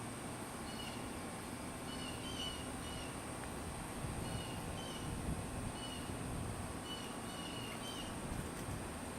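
A bird calling in the background with short, high chirps, often two or three in quick succession, repeating every second or two over steady outdoor background noise.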